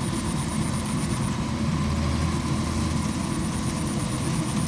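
Kubota DC-93 combine harvester running steadily with a low engine hum and a faint high whine.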